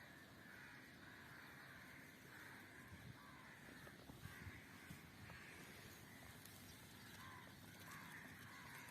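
Kitten crying in a faint, steady series of short calls, one following another.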